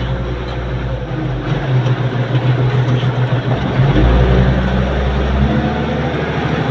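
Engine of a bucket-equipped work machine running steadily under load, its note shifting a little partway through as the machine is worked.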